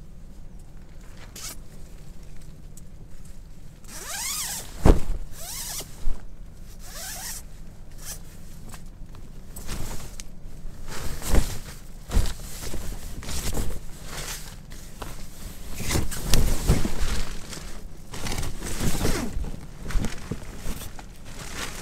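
A series of short scraping and rustling handling noises, one with a quick squeaky falling glide. They become busier from about ten seconds in.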